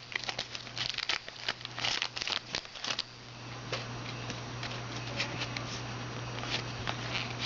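Foil trading-card pack wrappers crinkling and tearing as packs are opened by hand: a dense run of crackles for about three seconds, then only occasional soft clicks over a steady low hum.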